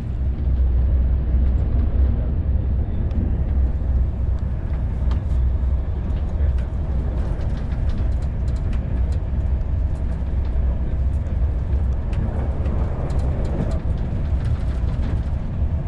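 Steady low rumble of a CP Intercidades passenger train running at speed, heard inside the coach, with faint scattered clicks and rattles over it.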